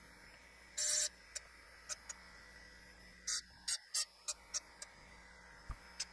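Harig Super 612 surface grinder running with a steady hum while its wheel grinds the point of a center punch, in short hissing bursts of cutting that come and go, the longest about a second in and a quick cluster around the middle.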